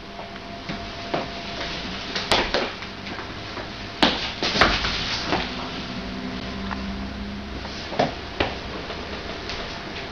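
Irregular thumps and knocks of a girl's sneakers, hands and knees on a wooden parquet floor as she does gymnastics moves such as the splits and a backbend bridge. A sharp knock about four seconds in is the loudest, with others about two and eight seconds in.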